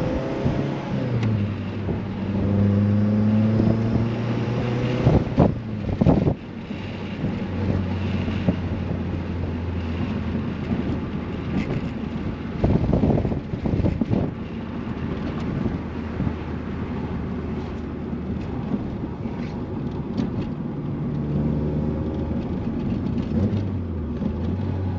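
The G23 VTEC-swapped Honda Civic's engine heard from inside the cabin while driving. Its note rises at first, then falls with sharp knocks about five to six seconds in and again around thirteen seconds in, before settling into a steady drone.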